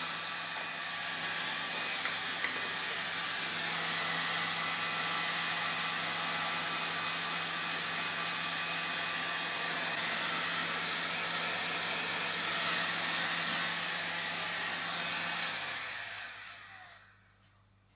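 Electric heat gun blowing hot air over heat-shrink wrap: a steady rushing hiss with a low fan-motor hum. Near the end it is switched off and the fan winds down over about two seconds.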